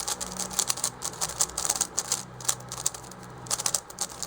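YJ Yuhu V2M magnetic Megaminx being turned quickly by hand: a fast, irregular run of plastic clicks as its faces turn and snap into place.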